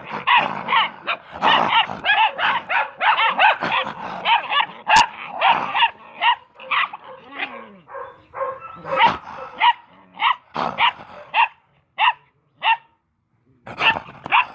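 Several Belgian Malinois puppies barking and yapping. The calls overlap thickly at first, then thin out to single sharp yaps about two a second in the second half.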